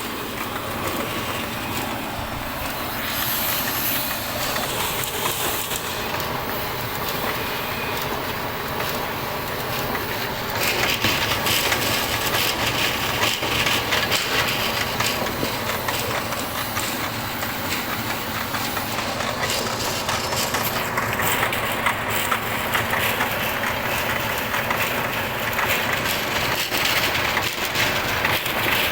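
Wood pellet mill running, a steady loud mechanical rattle and hum with dense clattering; it grows louder and harsher about eleven seconds in.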